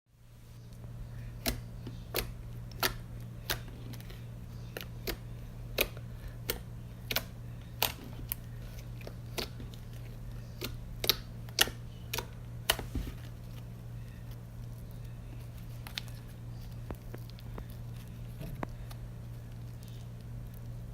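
Slime being poked and squeezed, making a run of sharp popping clicks, about one or two a second, that thin out about two-thirds of the way through. A steady low hum lies underneath.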